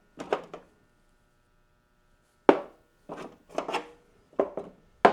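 Small metal hand tools clinking and knocking as they are picked out of a toolbox and set down: a couple of knocks at the start, a pause, then a run of several more.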